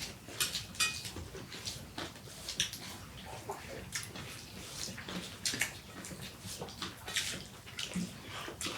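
People eating fast: wet chewing and lip-smacking, heard as a string of short, irregular clicks and smacks.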